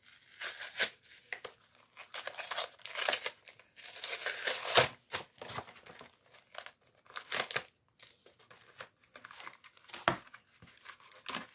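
Plastic wrapping on Pokémon card packaging being torn open and crinkled in irregular bursts, the longest stretch about four seconds in.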